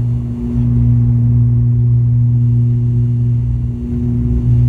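ATR 72 turboprop (Pratt & Whitney Canada PW127 engine and propeller) running at a steady low power while taxiing, heard from inside the cabin as a loud, even drone with a low hum and a higher tone above it. The level dips slightly twice.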